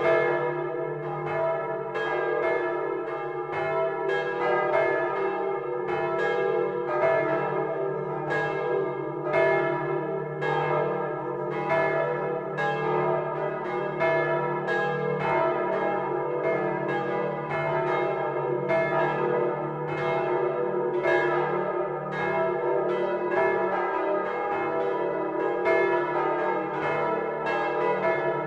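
Full peal of the Domtoren's large swinging bronze church bells, hand-rung all together and heard from inside the bell chamber. Clapper strikes come every half second or so and overlap into one continuous ringing, over a deep, steady hum from the bells.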